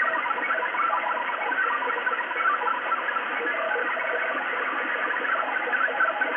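XPB numbers station received on 5839 kHz shortwave through a Sony ICF-SW7600G's speaker: a fast, unbroken stream of short tones hopping between pitches over shortwave static, the sound of a multi-tone data transmission.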